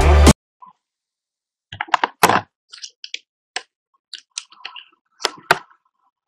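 Electronic intro music cuts off a fraction of a second in. Then come scattered clicks and taps at a computer desk, the loudest about two seconds in and again about five and a half seconds in.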